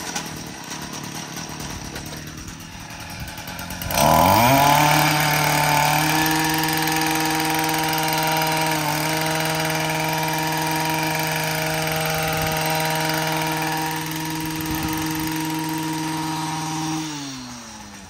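Gas string trimmer engine running at idle, then revved up about four seconds in to a steady high-speed whine and held there, before being let back down, falling in pitch, near the end.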